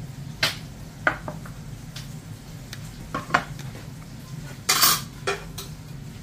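Ceramic plates and metal cutlery being set down on a granite countertop: a handful of sharp clinks and knocks, with the loudest, a longer clatter, about five seconds in as a fork and knife are laid on a plate.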